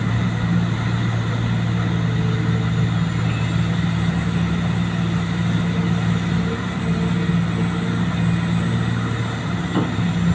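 Vehicle engine idling steadily at one even speed, without revving, on a test run after a fuel pump repair.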